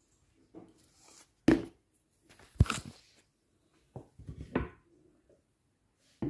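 Four separate knocks and clatters of kitchen things being set down on a countertop, the second the loudest, with quiet between them.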